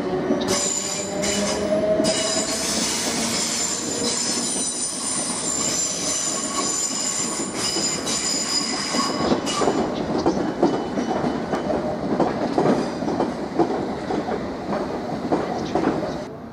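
Southern Class 455 electric multiple unit's wheels squealing on a curve as it approaches, several high squeal tones held together for about nine seconds. The squeal then gives way to a rapid clatter of wheels over points and rail joints.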